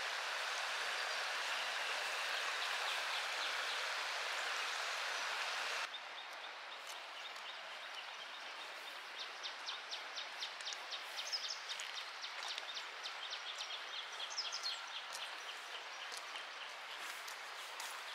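A steady hiss of rain or running water that cuts off abruptly about six seconds in. It gives way to a quieter outdoor background of rapid, evenly repeated high chirping.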